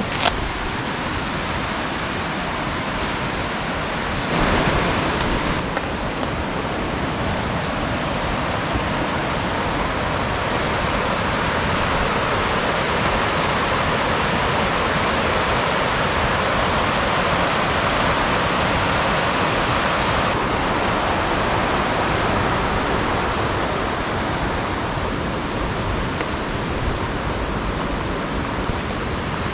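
Heavy rain falling in a steady, dense hiss, swelling briefly louder about four seconds in.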